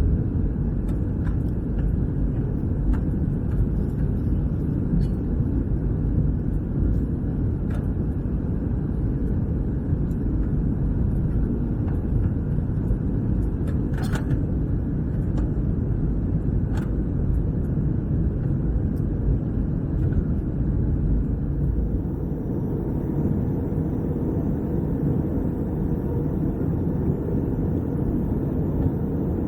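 Airbus A321-200 cabin noise in flight: the steady low rumble of engines and airflow, with a few faint clicks and a sharper tick about fourteen seconds in.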